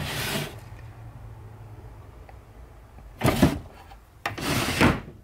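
Short rubbing and knocking noises of household objects being handled in a small room, three brief bursts, over a faint steady low hum.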